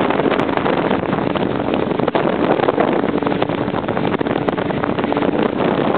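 Small motorboat running at speed: its engine sounds steadily under wind noise on the microphone and water rushing past the hull.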